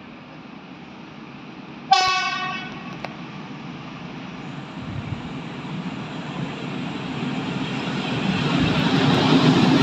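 EU07 electric locomotive sounds one short horn blast about two seconds in. Then the rumble of the locomotive and its train of open coal wagons grows steadily louder as it approaches.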